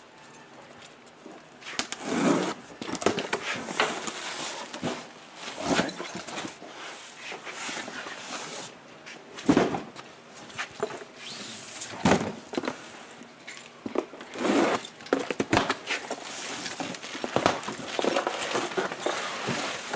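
Cardboard carton being opened and unpacked by hand: flaps pulled open and cardboard packing rustling, scraping and knocking in irregular bursts.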